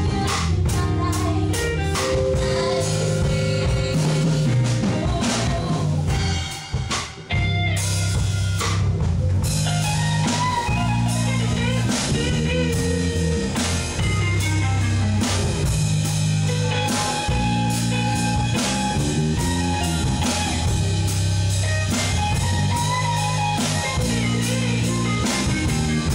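Live band playing: electric guitar, electric bass and drum kit together, with a brief drop-out about seven seconds in before the full band comes back in.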